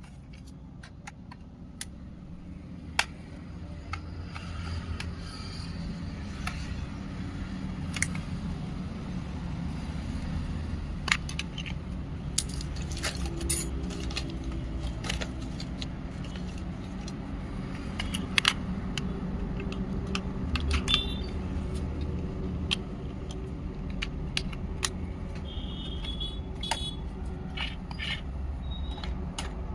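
Scattered plastic clicks, knocks and rattles from handling a toy RC truck's plastic remote controller, whose battery compartment is being worked on, over a low steady rumble that grows louder a few seconds in.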